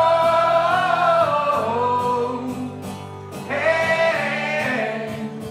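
Male pop singer holding long sung notes over steady instrumental backing, with a brief break just after three seconds before a new phrase begins.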